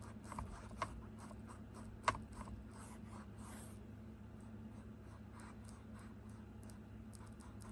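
Paintbrush strokes on a canvas: bristles brushing and scratching across the surface in quick, short strokes, with a sharper tap about two seconds in. The strokes thin out and grow fainter in the second half.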